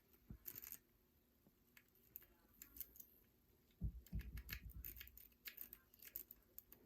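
Faint, irregular clicking and scraping of a homemade steel rake pick being worked through the pins of an old Corbin lock under a tension tool, with a soft low bump about four seconds in and the clicks coming thicker after it.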